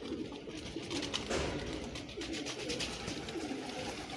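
Domestic pigeons cooing, a run of short low coos one after another.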